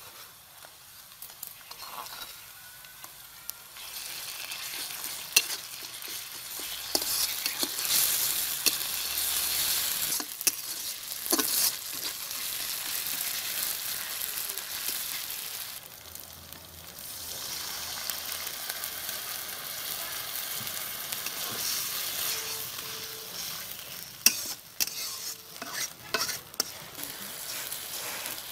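Onions, green chillies and garlic paste sizzling in hot oil in a metal karahi, while a spatula stirs and scrapes the pan, with sharp clicks where it knocks against the metal now and then.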